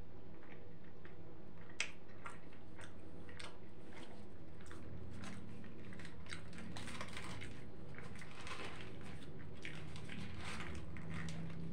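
Close-miked chewing of a mouthful of shawarma: wet mouth smacks and clicks at irregular intervals, with one sharp click about two seconds in.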